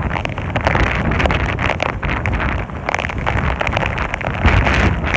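Hurricane winds and driving rain: gusts buffeting the microphone with a heavy rumble, over a steady hiss of rain and a spatter of raindrop ticks, with a stronger gust about four and a half seconds in.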